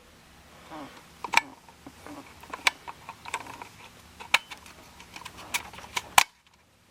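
Irregular sharp plastic and metal clicks and taps, about a dozen, as a replacement cigarette lighter socket is handled and pressed into its housing, with a last sharp click near the end.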